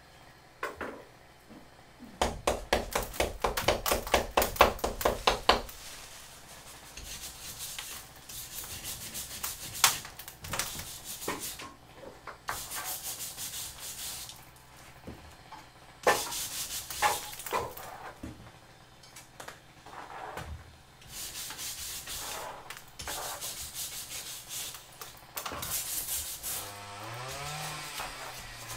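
A hand scraper scraping old coating off a brick stove. About two seconds in comes a fast, even run of strokes, about five a second, lasting some three seconds; after that come irregular bouts of slower scraping.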